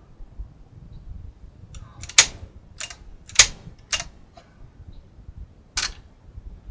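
Realistic SCT-10 cassette deck's piano-key transport buttons clicking as they are pressed and released, five sharp clacks spread over a few seconds.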